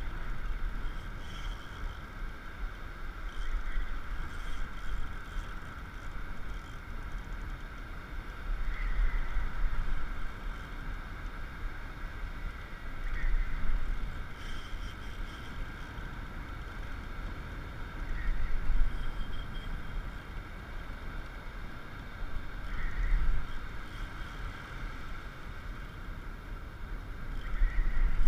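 Surf breaking on the beach: a low rumble that swells and fades about every four to five seconds over a steady hiss.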